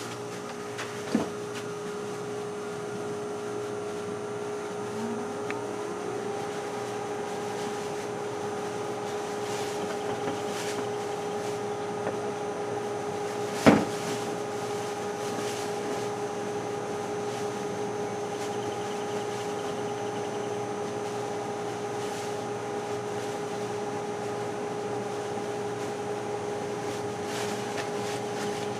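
Steady mechanical hum made of two even tones, the higher one gliding up and settling in about five or six seconds in, with a single sharp knock about halfway through.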